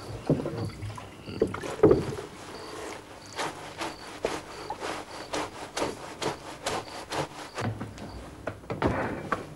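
Wet clothes being scrubbed by hand in a wooden washtub: a few heavy sloshes and rubs at first, then a quick run of rubbing strokes from about three seconds in.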